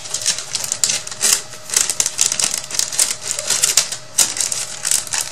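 Small chipboard fence pieces and a clear plastic packet being handled on a tabletop: a busy, irregular run of light clicks, taps and crinkles.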